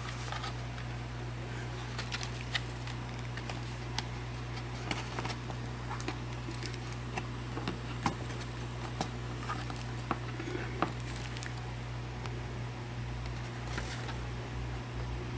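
Irregular light taps and clicks of small plastic toiletry bottles and tubes being handled and set down on a surface, over a steady low hum.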